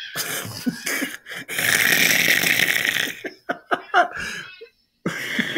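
A man laughing hard in short bursts, about three and a half seconds in, after a loud rushing burst of noise that lasts about a second and a half.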